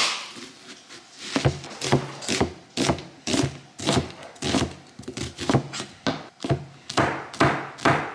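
Kitchen knife chopping food on a cutting board in a steady rhythm of about two strokes a second, starting about a second in.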